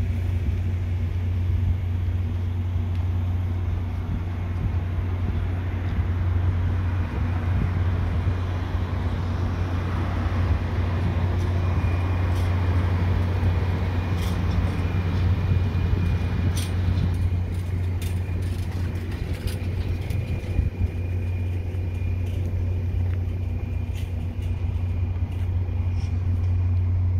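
Steady low mechanical hum of a standing stainless-steel passenger train, its onboard equipment running, with a few faint higher tones over it. Scattered light clicks come in the second half.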